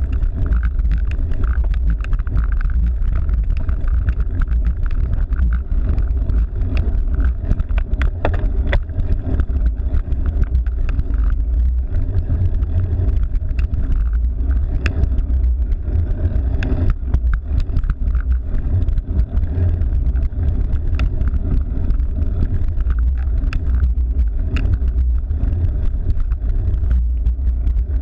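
Steady wind rumble on the microphone while riding a cyclocross bike, under the bike's road noise, with scattered small clicks and rattles throughout.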